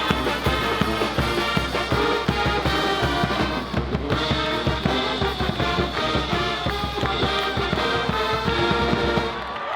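Upbeat music with brass and a steady, heavy beat. It cuts off abruptly just before the end.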